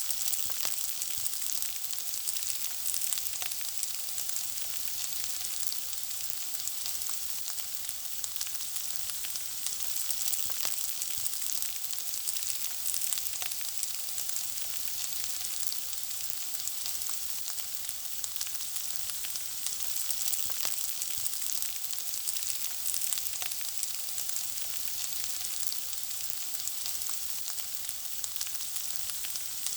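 Food frying, sizzling steadily as an even hiss with a constant scatter of small crackles and pops.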